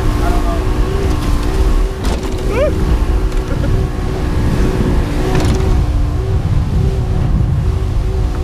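Motorboat running at speed: a steady engine drone with a humming whine, under heavy wind rumble on the microphone.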